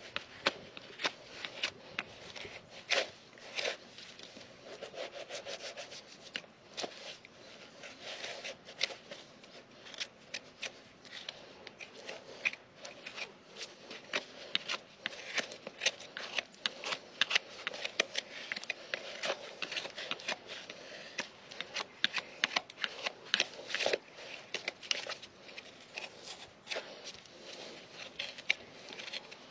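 Hoof knife paring the sole and frog of a Shire horse's hoof: an irregular run of short scraping cuts through the horn, with the odd sharper click.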